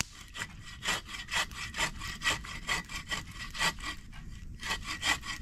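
Sven folding bow saw cutting through firewood by hand, in quick, even back-and-forth strokes of about two a second.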